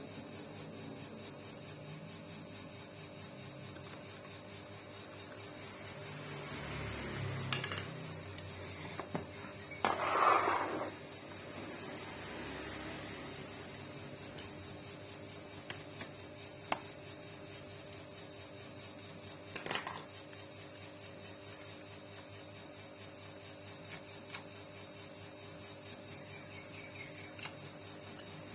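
Tools and metal machine parts being handled: a few scattered clicks and one short scrape, over a steady faint hum.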